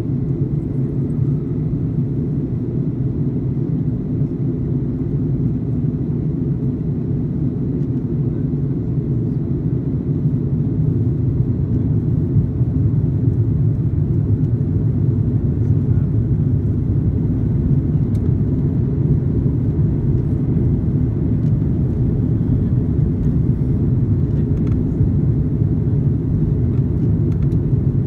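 Steady low rumble of airliner cabin noise in an Airbus A330-300 in descent: engine and airflow noise heard through the fuselage. It grows slightly louder a little under halfway through, as the wing spoilers are raised as speed brakes.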